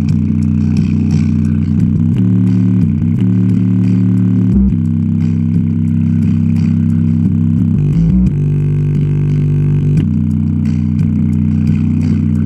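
Two JBL Charge 4 portable speakers playing a bass-heavy track at full volume with the bass limiting (DSP) switched off: loud, deep bass notes that hold and shift pitch every second or two, with little above the low end.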